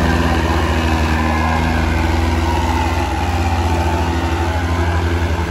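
Diesel tractor engines of a Farmtrac 6055 and an Indo Farm 3055 running hard under heavy load as they pull against each other in a tug-of-war, a loud, steady, deep pulsing throb.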